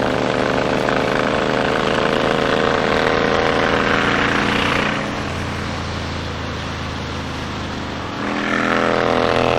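2007 Honda VTX 1300S V-twin engine running at road speed, with wind rushing past. The engine note eases off about five seconds in and picks up again a little after eight seconds as the throttle is opened.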